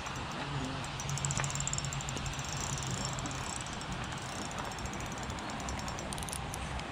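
Spinning reel cranked during a retrieve, its gears giving a fast, fine ticking, over a steady hiss and a low hum.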